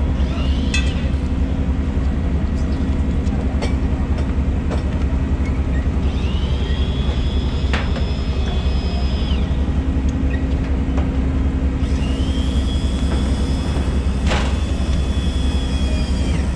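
An engine idling with a steady low hum throughout, with a few sharp thuds as heavy whole tuna are laid onto the wooden bed of the cart. Twice, a high whine sounds for a few seconds over the hum.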